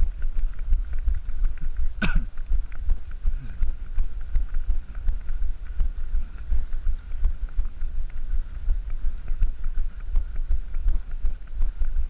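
Wind buffeting and jostling rumble on the microphone of a camera carried by a runner on the move, a constant low rumble with a fluctuating level. A single sharp knock about two seconds in.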